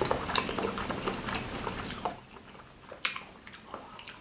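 Close-miked mouth sounds of someone biting and chewing martabak telor, a fried pastry filled with egg and beef and doused in chili sambal: wet smacks and small clicks. They come thickly for about two seconds, then thin out to a few separate clicks.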